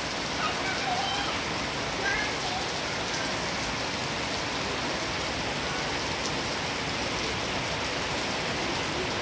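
Heavy rain falling steadily on grass and a concrete yard: an even, unbroken hiss.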